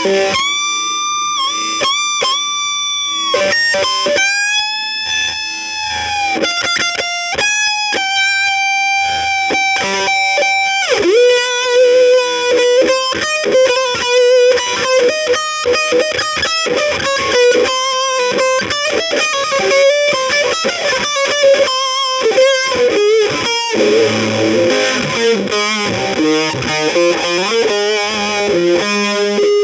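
Instrumental guitar music led by an electric guitar: long held notes for the first ten seconds or so, then fast runs of quick notes, growing thicker and more distorted near the end.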